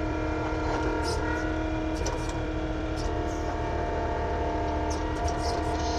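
Engine of an earthmoving machine running steadily while it works soil, with scattered short clicks and clanks over the drone.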